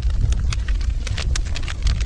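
Fire in a fireplace crackling: many sharp pops and snaps, several a second, over a steady low rumble of the flames.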